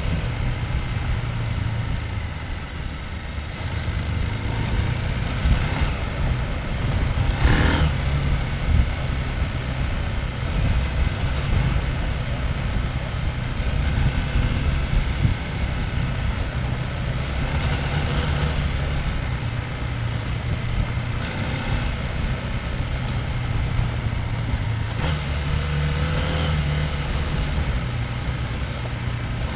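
Husqvarna Norden 901's parallel-twin engine running at low revs, its note stepping up and down as the throttle changes. There is a brief rush of noise about seven and a half seconds in.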